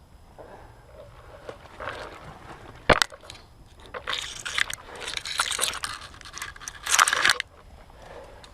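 Scraping and crunching noises with a single sharp crack about three seconds in, then a longer stretch of scraping from about four seconds that cuts off near the end.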